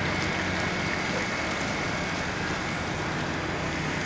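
Drainage pumping equipment pumping out floodwater, its engine running with a steady low hum.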